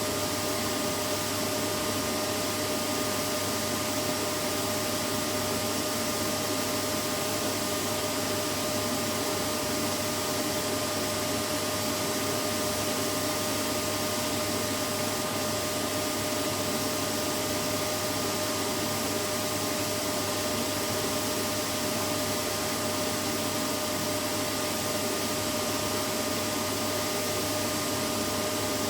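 Vacuum cleaner running steadily: an even rushing noise with a constant motor whine, unchanging throughout.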